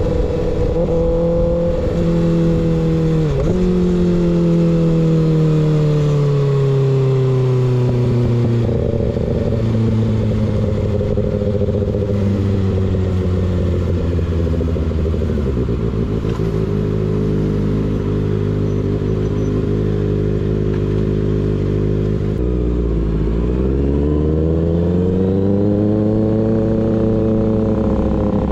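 Kawasaki ZX6R's inline-four running through an unbaffled M4 GP19 slip-on exhaust while riding. The revs dip briefly about three seconds in and then fall slowly for several seconds. They hold steady for a long stretch, then drop sharply about two-thirds of the way through and climb back up toward the end.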